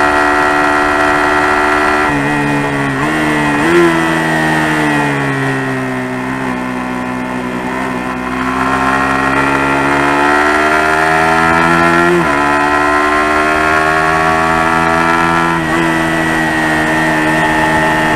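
Suzuki GSX-R150's single-cylinder four-stroke engine running on a winding road. Its revs drop and then jump up twice about two to four seconds in, as on downshifts into a bend. They sink while it coasts, climb steadily under throttle, and fall sharply about twelve seconds in on an upshift, with another gear change near the end.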